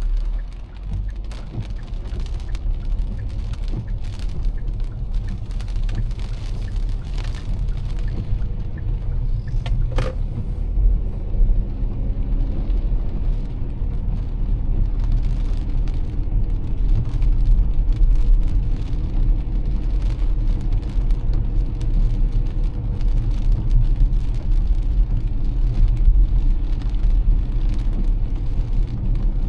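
A car driving in heavy rain: a steady low rumble of engine and tyres on the wet road, with scattered taps of raindrops and a single sharper click about ten seconds in.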